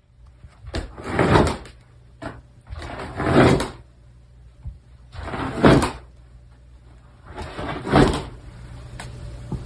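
A dog's plastic cone collar knocking and scraping against wooden stair spindles and steps as the dog climbs an open staircase. There are four scrapes about two seconds apart.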